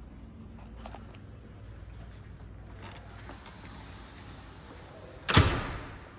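A steady low hum, then a single loud thud a little over five seconds in that dies away within about half a second.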